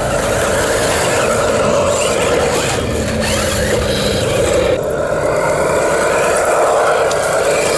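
Radio-controlled model trucks driving on sand: a steady motor and gear whine whose pitch sags briefly about five seconds in and climbs back up.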